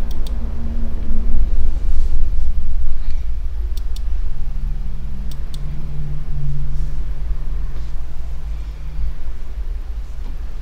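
A loud low rumble with a steady droning hum that swells in the middle and fades near the end, and a few brief sharp clicks.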